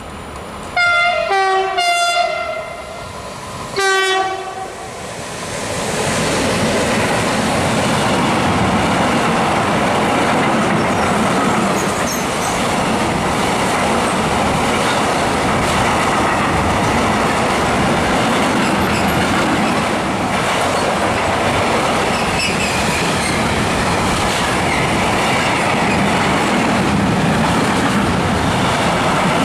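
A freight train's horn sounds about a second in and again briefly about four seconds in as the train approaches. Then the train passes close by: a steady loud rumble and wheel clatter of covered freight wagons and tank wagons rolling through.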